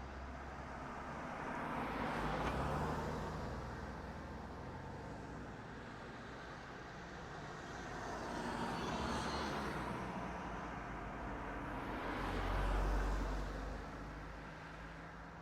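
Three cars driving past one after another, each pass swelling and then fading with engine and tyre noise. The third pass, about thirteen seconds in, is the loudest and has a deep low rumble.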